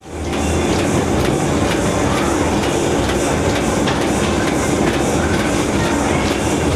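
MDT 20K double-track soap wrapping machine running: a steady, busy mechanical clatter with faint, regularly repeating clicks.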